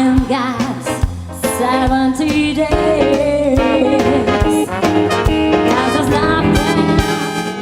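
Upbeat dance music with a brass section over a steady drum beat, fading out near the end.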